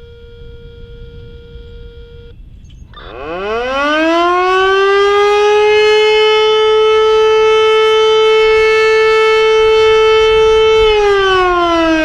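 A faint steady tone for about two seconds. Then, about three seconds in, a Federal Signal Model 2 outdoor warning siren winds up: its pitch climbs quickly and settles into a loud steady wail. Near the end the pitch starts to fall as the siren winds down in its attack signal.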